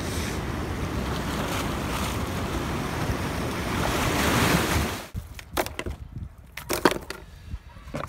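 Sea waves surging and washing over a rocky shore, a dense rushing noise that swells to its loudest at about four and a half seconds and then cuts off abruptly. After that come a few scattered sharp clicks and knocks against a quiet background.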